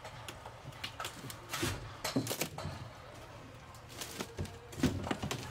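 Irregular knocks, clicks and clatter of hand demolition work, interior fittings being ripped out of a steel ship's hull.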